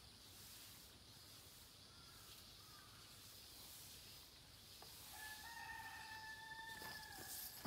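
Near silence with a faint steady high hiss. About five seconds in, a faint distant call or tone holds one steady pitch for about two seconds.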